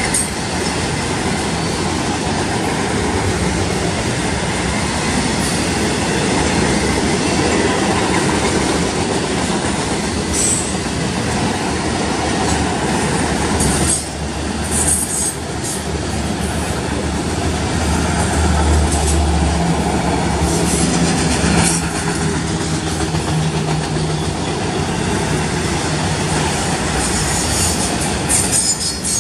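Autorack freight cars rolling past close by: a steady rumble and clatter of steel wheels on the rails, with short high wheel squeals now and then.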